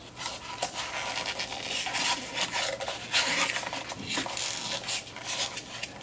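Irregular rubbing and scraping strokes as parts are worked and fastened into place by hand, over a faint steady hum.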